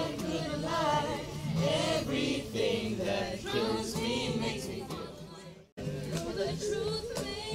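A group of voices singing together. The sound cuts out abruptly for a moment about five and a half seconds in, then the singing picks up again.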